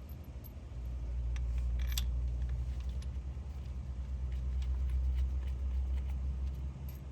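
A low, uneven rumble with a few light metallic clinks, the clearest about two seconds in, from bolts and parts being handled while fitting the fuel rail over the injectors.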